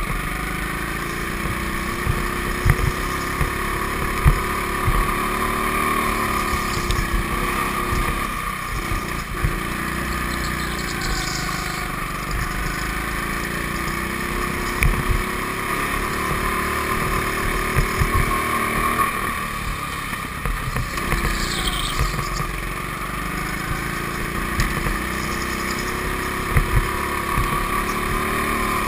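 A go-kart's motor running at speed as it laps, its pitch repeatedly rising and falling, with scattered low knocks and buffeting on the camera mic.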